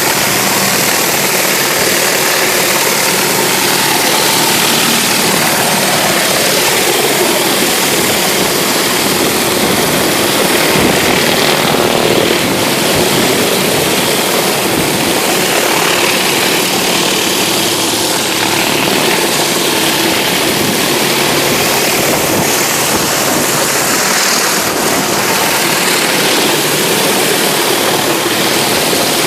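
Pressure washer's gas engine running steadily while a rotary surface cleaner blasts high-pressure water onto concrete, making a loud, even hiss of spray over the engine drone.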